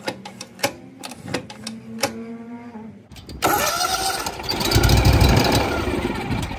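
Hustler Surfer Pro mower's engine starting: a few sharp clicks, then about three and a half seconds in the engine catches and runs loudly. It starts now that the parking brake switch, knocked loose by a cotter pin, is seated and engaged again.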